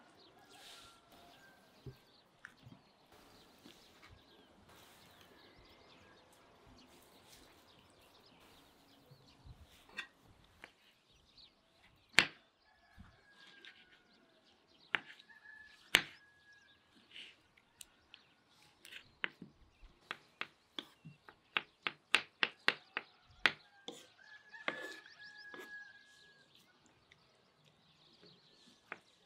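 Kitchen knife chopping soft roasted, peeled tomatoes on a wooden cutting board: a few single knocks, then a fast run of chopping strikes, about three or four a second, about two-thirds of the way in. A bird calls briefly a few times in the background.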